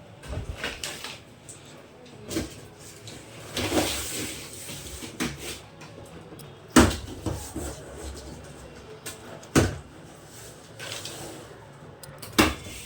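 A washing machine's cardboard shipping box being opened: scraping and rustling handling noises with a few sharp knocks, the loudest about seven and ten seconds in and again near the end.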